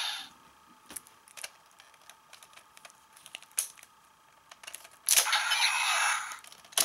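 Scattered small plastic clicks and clacks as the Bandai DX Double Driver toy belt is handled. About five seconds in, a loud electronic sound effect starts abruptly from the belt's built-in speaker, and a sharp click and falling electronic sweeps come right at the end.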